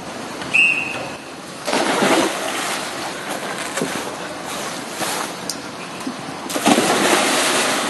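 Splashing and churning pool water as a swimmer in a wetsuit enters the pool, loudest from about six and a half seconds in. A short high tone sounds about half a second in.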